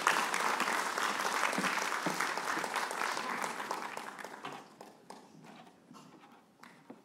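Audience applause, a dense patter of many hands clapping, that dies away about two-thirds of the way through, leaving a few last scattered claps.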